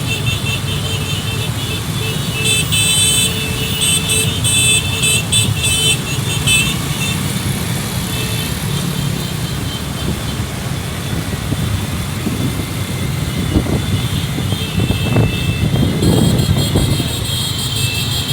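Road convoy of cars and motorcycles: engines running in a steady low rumble, with a rapid high pulsing tone in two stretches and a few engine revs near the end.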